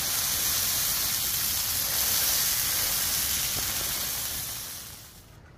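Halved baguette sizzling as it toasts in a hot nonstick frying pan: a steady hiss that fades out about five seconds in.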